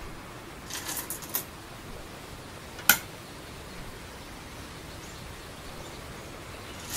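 A few light clicks of go stones about a second in, then just under three seconds in a single sharp click of a go stone being set down on a wooden go board, over a steady low hiss.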